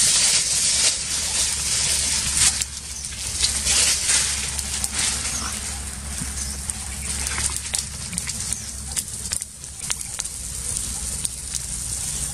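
A pile of dry leaves burning, crackling densely with many sharp pops, loudest in the first couple of seconds.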